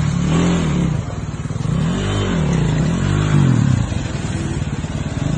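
Dirt bike engine revving in short throttle blips, its pitch rising and falling about three times as the bike is worked over river rocks, over the steady rush of stream water.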